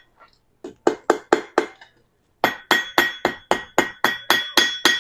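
Blacksmith's hammer striking hot round iron stock on an anvil to bend a 90-degree angle in a hat hook, each blow followed by a bright metallic ring. A handful of blows, a short pause, then a steady run of about four blows a second.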